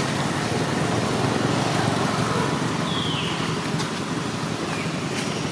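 Steady rushing background noise, with one short high squeak that falls in pitch about three seconds in.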